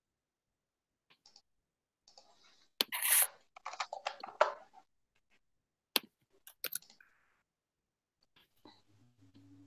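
Computer mouse clicks and keyboard taps mixed with scratchy rustling, busiest from about two to five seconds in, then a few sharp clicks near six seconds.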